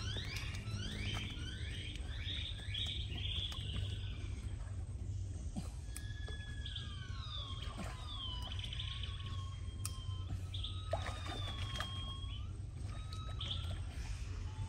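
Birds whistling: a quick run of rising whistles at first, then longer slurred whistles that slide up and down, over a steady low hum.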